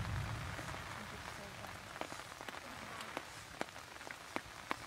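Eating by hand outdoors: a handful of short, sharp clicks and smacks from fingers picking at fish and a spoon working in a clay bowl, over a steady hiss.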